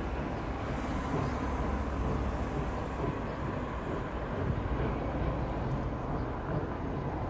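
Steady low rumble of a steam locomotive hauling passenger coaches as it approaches.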